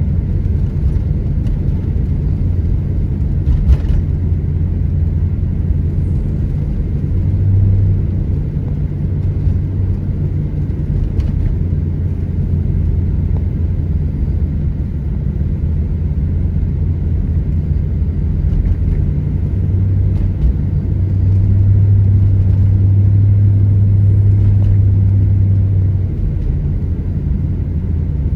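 Steady low road and engine rumble of a car driving, heard from inside the cabin. It swells louder for several seconds about three-quarters of the way through.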